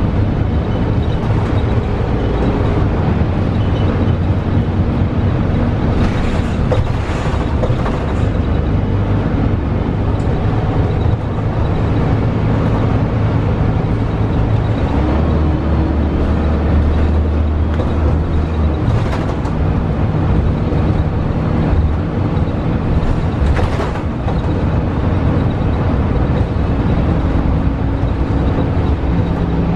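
Cabin noise of a 2012 Gillig hybrid bus under way: the Cummins ISL9 diesel drivetrain running with road and tyre noise. The engine note shifts a few times, most clearly around the middle. There are occasional brief rattles.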